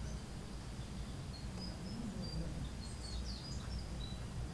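Outdoor background: a steady low hum with faint, short bird chirps now and then, more of them in the second half.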